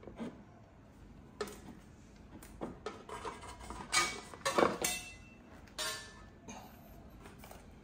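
Scattered metallic clinks and knocks from small metal tools and parts being handled, a handful of sharp strikes with the loudest in the middle.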